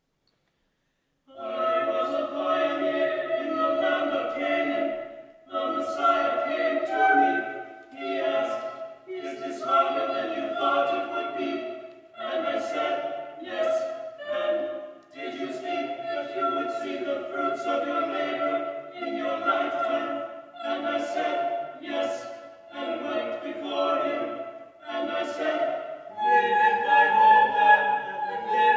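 Small mixed-voice a cappella ensemble singing a contemporary choral piece in short phrases with brief breaks between them. It starts about a second in, and near the end it grows louder and higher.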